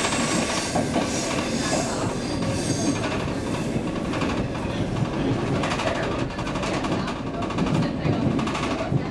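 Stockholm Metro C15 train running at speed, heard from inside the carriage: a steady rumble of wheels on rail with clatter over the rail joints. A high-pitched wheel squeal is heard in the first three seconds.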